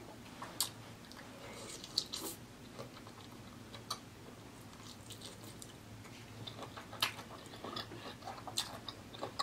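A person chewing sauce-coated lobster meat close to the mic, with wet mouth clicks and smacks scattered through and a few sharper clicks.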